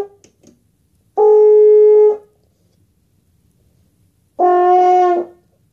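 French horn playing two separate held notes about a second long each, with pauses between them; the second note is lower than the first.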